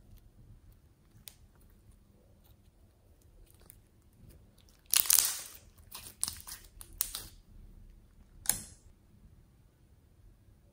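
Clear pink slime with flower-shaped confetti squeezed and worked by hand, with faint scattered clicks at first. From about five seconds in comes a loud run of crackling and popping lasting about two seconds, then one more sharp crackle about a second later.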